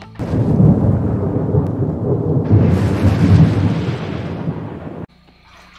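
Thunder rumble with rain hiss as an intro sound effect. It starts just after the opening, gains a hiss about halfway through, and cuts off abruptly about five seconds in.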